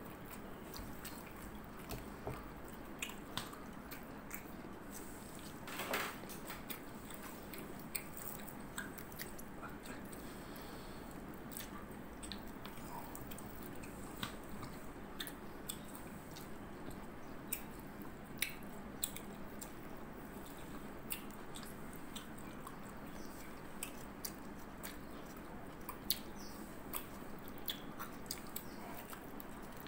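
A person eating rice and fish with their hands: soft chewing and mouth sounds with scattered small clicks of fingers and food on a plate, one slightly louder about six seconds in.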